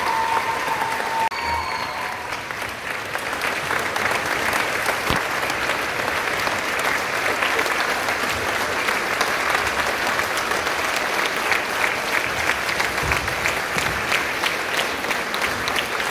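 Concert audience applauding steadily, a dense patter of clapping. A single held note from the band ends about a second in.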